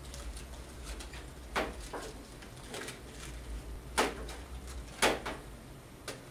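Aluminium foil crinkling as foil-wrapped containers are handled and set down on a steel bench: a handful of sharp crackles and knocks, the loudest about four and five seconds in, over a low steady hum.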